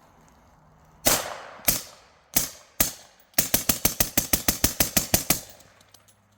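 Suppressed .300 Blackout rifle firing: four separate shots, then a rapid string of about sixteen shots at roughly eight a second.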